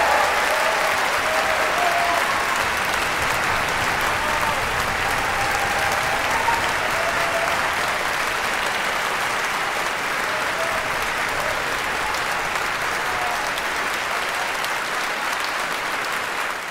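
Theatre audience applauding steadily, with a few voices calling out over the clapping; the applause fades out at the very end.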